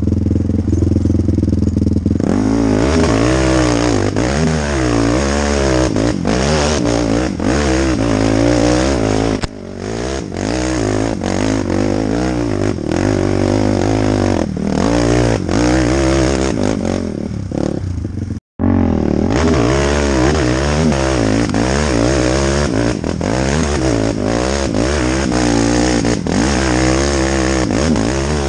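Quad ATV engine heard from the rider's seat: it runs steadily for about two seconds, then revs up and down again and again as the throttle is worked over rough ground. The machine's rattles and knocks over the bumps run through it. The sound cuts out for an instant about two-thirds of the way through.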